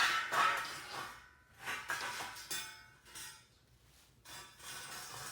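Lengths of steel angle clanking and clinking against each other as they are handled and set down: several sharp metallic knocks with a ringing tail, loudest in the first second or so, then fainter clinks.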